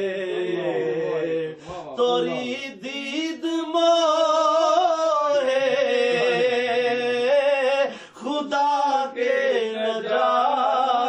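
A man singing a naat solo, drawing out long, wavering melismatic notes without words, with a short break for breath about eight seconds in.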